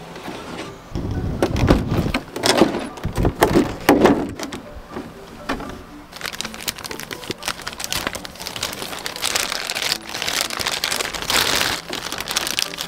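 Clear plastic packaging bag crinkling and rustling as the parts of a PVC figure are unwrapped. A few heavier thuds of packaging being handled come in the first few seconds.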